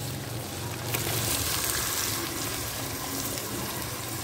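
Soaked split urad dal poured from a clay bowl into hot oil and masala in a clay pot, sizzling steadily; the hiss swells about a second in and then holds.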